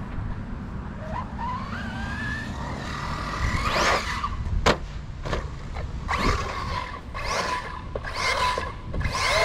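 Radio-controlled car on a dirt track: its motor whine rises in pitch, then comes a run of short bursts of tyres scrabbling and skidding on dirt, with a sharp knock near the middle.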